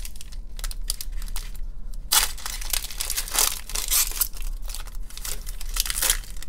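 Silver foil wrapper of a Panini Chronicles baseball card pack being torn open and crinkled by hand, in an uneven run of crackles and rips, the loudest a little after two seconds in.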